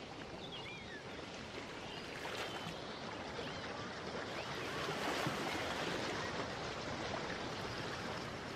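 Steady rushing water sound, with a few short chirps in the first three seconds.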